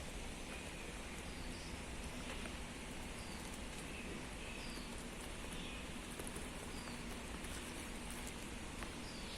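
Outdoor ambience: a steady rushing noise, with a few faint short chirps scattered through it.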